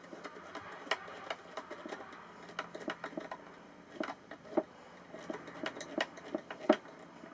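Irregular light clicks and taps of small hinge hardware and tools being handled, with the sharpest knock near the end.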